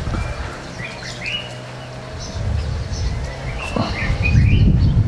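Small birds chirping in short, scattered calls over a steady low hum and rumble that grows louder in the second half.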